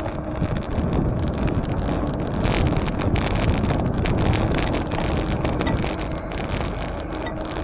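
Wind buffeting the microphone during a bicycle ride: a steady rush of low noise that swells and eases a little, with no distinct events.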